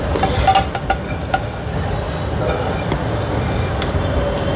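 Fingers scraping crumbled roasted papad off a plate into a glass bowl: rustling scrapes with a few light clicks in the first second and a half, over a steady hiss.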